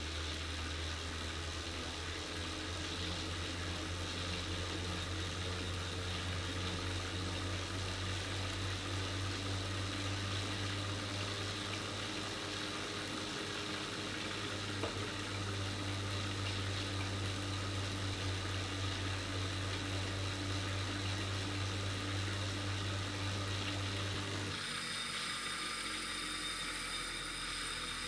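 Wahoo KICKR 2018 direct-drive smart trainer ridden at about 30 mph: a steady low hum of the flywheel with a whir from the bike's drivetrain. About three and a half seconds before the end the low hum drops away and the sound changes.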